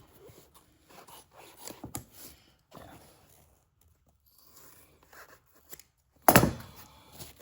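Scissors snipping through a piece of upholstery foam in short, scattered cuts, with one louder thump about six seconds in.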